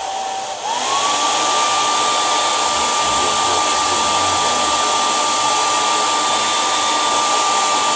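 Handheld hair dryer blowing over freshly sprayed, slicked-down hair to dry the spray: a steady rush of air with a motor whine. About half a second in it is switched up to a higher setting, and the whine rises in pitch and the blowing gets louder, then holds steady.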